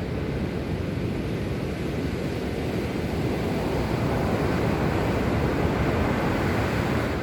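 Sea waves washing on the shore in a steady rush, with wind buffeting the microphone; the surf swells a little about halfway through.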